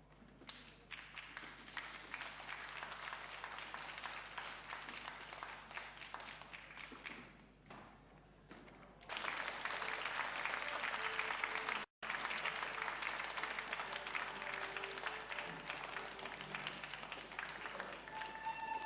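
Audience applauding, fading briefly and then starting again louder about nine seconds in. Near the end a few steady instrument tones come in over the clapping.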